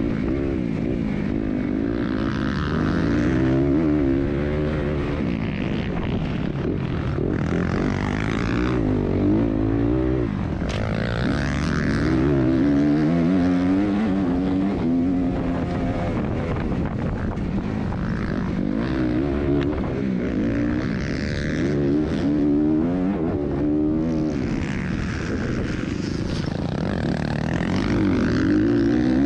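Dirt bike engine at race pace, heard from the bike's onboard camera: its pitch climbs and drops back over and over as the throttle is worked and gears are shifted, over a steady rush of wind and track noise.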